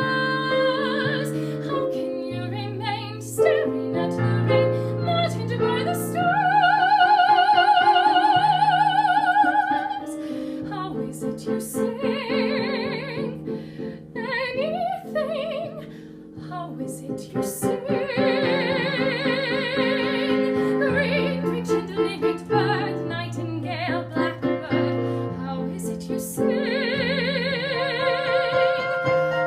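A soprano singing over piano accompaniment, with wide vibrato on several long held notes.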